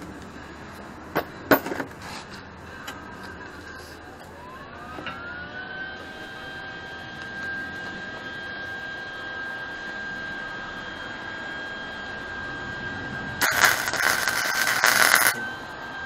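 A couple of sharp metal clinks, then a whine that rises and settles to a steady high pitch. About thirteen seconds in, a MIG welder's arc crackles for about two seconds as it welds the steel chain links.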